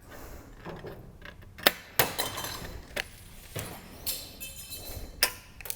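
Sheet-metal valley cleat being cut and handled: several sharp metallic snips and clinks, with the thin metal rattling and ringing briefly a little past the middle.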